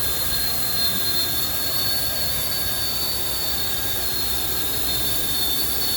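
Steady high-pitched whine of electric motors with rushing air, like car-wash blowers or vacuum machines running continuously.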